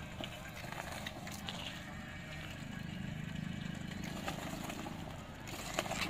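Homemade remote-control 4x4 mower chassis driving: its two battery-powered electric drive motors and chain drives running with a steady hum that grows louder about halfway through. A few sharp clicks near the end.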